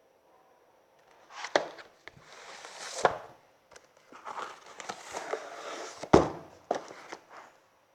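Books being handled: stretches of rustling broken by several sharp knocks, the loudest about six seconds in.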